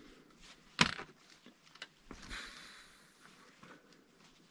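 Footsteps on loose lava-rock rubble: scattered small clicks and knocks, with one loud crunch about a second in and a short scuffing hiss just past the middle.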